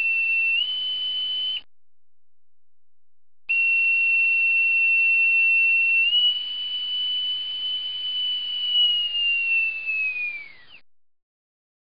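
A steady electronic tone over a faint hiss, stepping up slightly in pitch, then cutting off for about two seconds. It returns, steps up again, and near the end glides down in pitch as it fades out.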